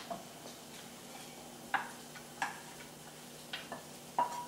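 A kitchen utensil clinking against cookware four times, about a second apart, the last clink ringing briefly, over a faint steady hum, as the sauce is added to the chicken in the skillet.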